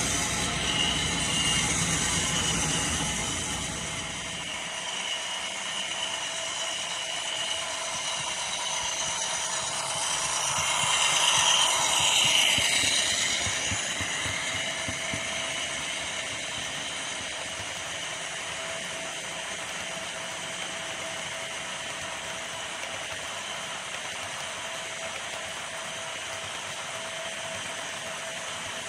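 HO scale model freight train running past on the layout track: a steady rattle of wheels on rail with motor hum, loudest about eleven to twelve seconds in as it passes close, then settling to a steady, quieter run.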